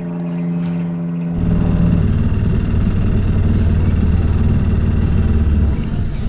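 Outboard motor on an aluminium jon boat running with a steady hum. About a second in, a louder low rumble takes over, easing off near the end.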